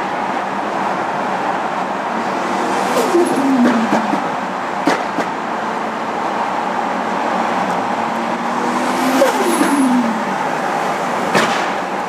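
Cars driving at speed on a road, with steady road and engine noise. An engine note falls in pitch about three seconds in and again about nine seconds in, and there are two sharp cracks, around five seconds in and near the end.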